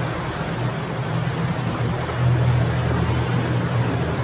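Small tour boat's motor running steadily, a low hum under a rush of water and air noise, a little louder around the middle.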